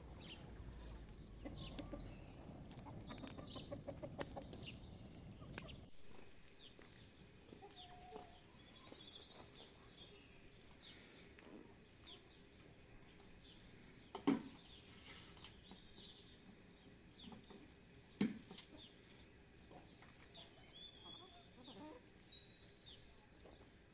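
Domestic chickens clucking faintly, with two sharp knocks about 14 and 18 seconds in.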